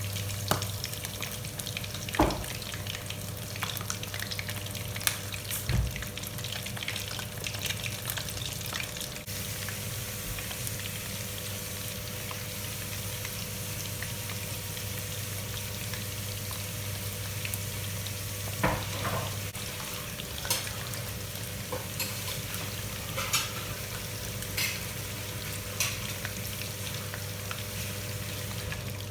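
Battered chicken feet frying in hot oil, a steady sizzle, with a utensil knocking against the pan now and then while stirring.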